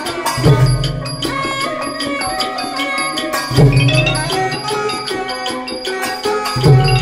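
Thai piphat mai khaeng (hard-mallet) ensemble playing: ranat xylophones and gong circles run in fast, busy notes over deep drum strokes that fall about every three seconds.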